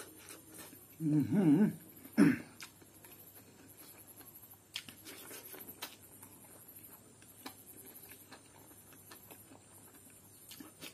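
Close-up eating sounds of a man eating fried rice with his hands: wet chewing and lip smacks with soft clicks, and a short hummed vocal sound with his mouth full about a second in and again just after two seconds. The hums are the loudest part; the rest is faint.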